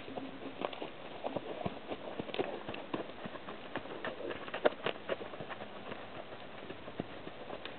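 A led horse's hooves at a walk: a run of irregular clicks and knocks, busiest in the first half, with the loudest knock a little past halfway.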